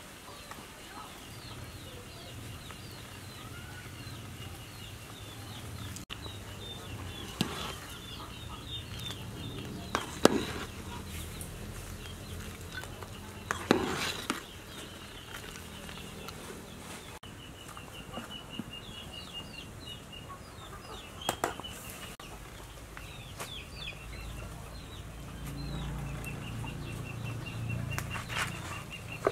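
Chickens clucking and chirping in quick runs of short high notes, over the low rumble of a pot of soup at a hard boil, with a few sharp knocks.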